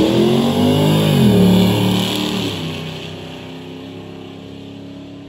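A drag car's engine at full throttle as it accelerates down the strip. Its pitch climbs and drops sharply twice with the gear shifts, and the sound fades steadily as the car pulls away.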